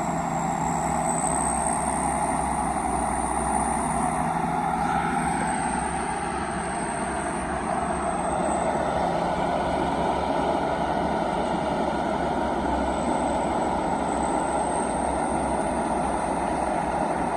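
Turbocharged diesel truck engine running steadily under load, with a high turbo whistle that wavers slightly over the engine noise.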